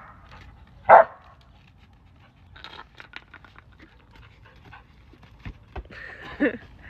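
Samoyed dog barking once, loudly, about a second in, then panting, with a short whining cry near the end.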